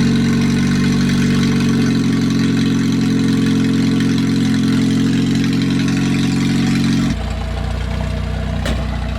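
Lifted Ford Tempo's engine idling steadily just after being started, then dropping noticeably quieter about seven seconds in.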